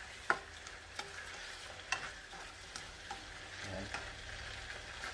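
Prawns frying in a pan with a faint sizzle while a spatula stirs them, giving a few sharp scrapes and taps against the pan.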